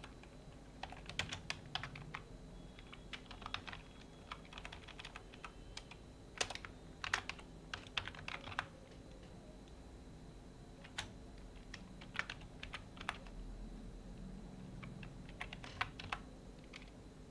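Typing on a computer keyboard: bursts of key clicks with short pauses between them.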